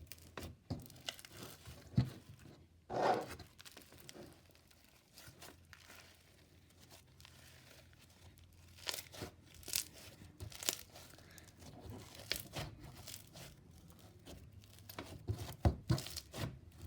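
Slime being stretched and squished by hand: irregular sticky crackles, clicks and pops, with a louder, longer squish about three seconds in.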